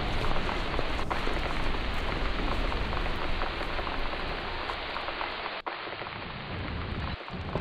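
Steady, heavy rain falling, a dense even hiss, with a brief break a little over halfway through.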